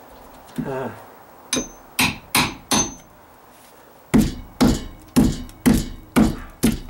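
Fiberglass-handled hammer striking rotted plywood sheathing: four quick blows, a short pause, then six steady blows at about two a second.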